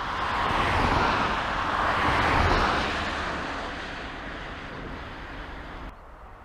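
A road vehicle passing by: tyre and engine noise swells over the first two seconds or so, then slowly fades away. Just before the end it drops abruptly to a quieter outdoor hush.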